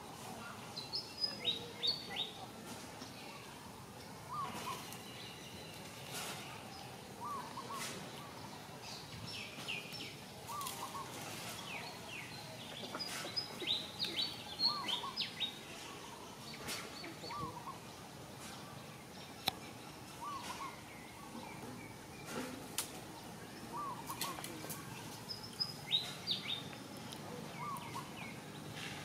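Background birdsong: a short two-note chirp repeating every second or two, with clusters of higher, quicker chirps now and then, over scattered light clicks and rustles.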